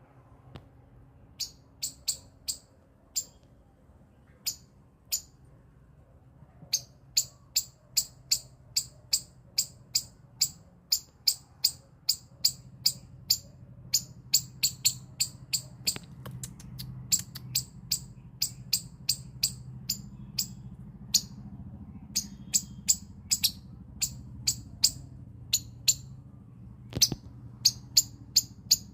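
A squirrel giving a long series of short, sharp, high-pitched chirping calls: a few scattered at first, then steady runs of about two a second.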